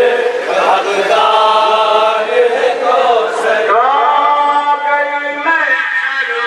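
Male voices chanting a noha, a Muslim mourning lament, in long held notes.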